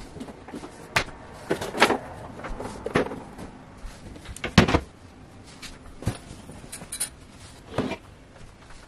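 Clothes and items being taken out of a wooden wardrobe: rustling fabric with several knocks and bumps against the shelves and panels, the loudest about four and a half seconds in.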